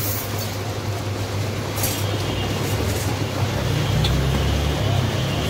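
Roller ice-cream machine running: its motor-driven drum spins with a steady low hum that swells slightly about four seconds in. A few light clicks come as a ladle spreads the mix across the drum.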